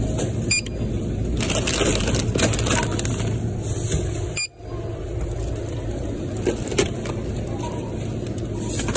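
Plastic candy bags crinkling as they are handled and scanned, over a steady low hum of store background noise.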